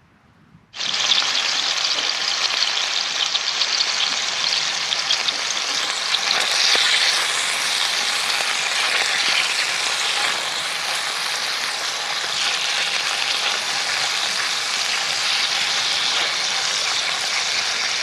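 Food sizzling loudly in a skillet: a steady frying hiss that starts abruptly about a second in and keeps on without a break.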